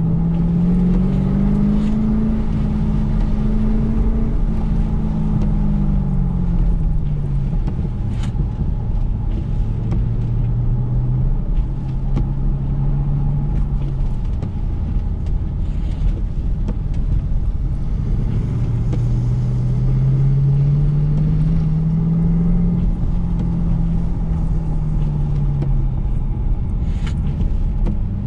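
2013 Camaro SS 1LE's 6.2-litre V8 heard from inside the cabin, its revs climbing and dropping several times as it accelerates and slows through an autocross course, over a steady hiss. Two short sharp clicks stand out, one about eight seconds in and one near the end.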